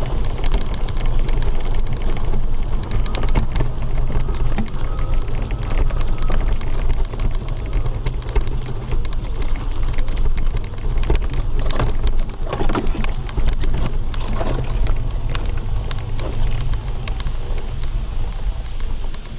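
Mobility scooter riding along a road: a steady low rumble and hiss of the ride, with scattered clicks and knocks, a cluster of them about twelve seconds in.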